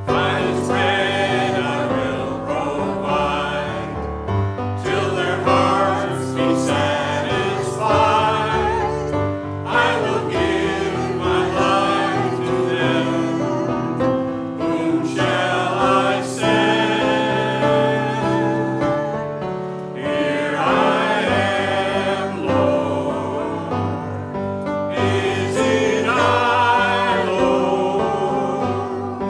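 Sacred music in a church service: voices singing a hymn over sustained accompaniment, in phrases a few seconds long.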